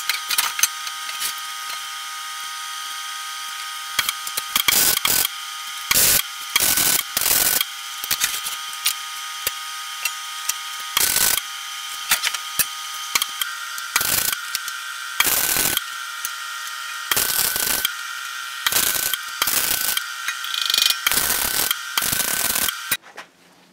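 Steel plates clanking and scraping against each other as they are handled and fitted together into a box, in repeated sharp clusters of strokes over a steady background whine that cuts off near the end.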